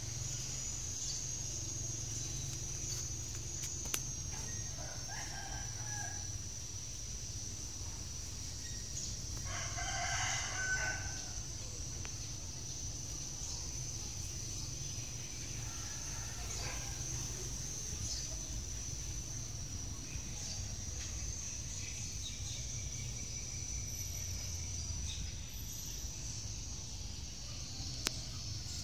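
Outdoor background with a steady high whine and a low rumble, and a distant animal calling three times: briefly about five seconds in, loudest about ten seconds in, and faintly around sixteen seconds.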